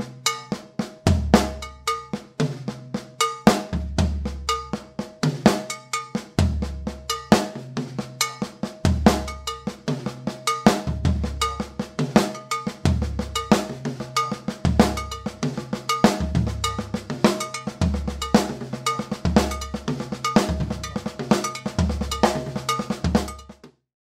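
Drum kit groove: the bass drum plays a tresillo rhythm under a steady stream of sixteenth-note hand strokes split between floor tom, cowbell, rack tom and snare, with the cowbell ringing out clearly. The playing stops abruptly just before the end.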